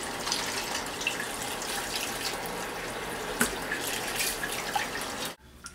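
Kitchen tap running into a stainless steel bowl of water as raw beef short ribs are rinsed by hand, with a few light knocks. The water sound stops suddenly just before the end.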